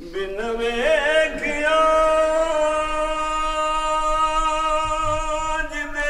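A man singing a devotional naat in Punjabi/Urdu, with no instruments. His voice climbs in steps over the first two seconds, then holds one long note for about four seconds before dropping near the end.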